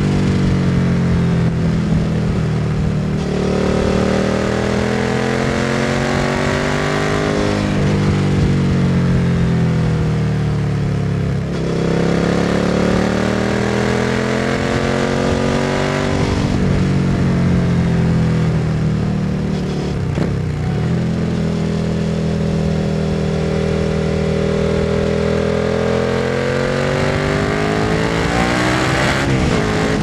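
Suzuki SV650's 645 cc 90-degree V-twin engine running through a Scorpion Serket Taper slip-on exhaust. Engine speed rises and falls several times, over several seconds each time, with sharper drops now and then.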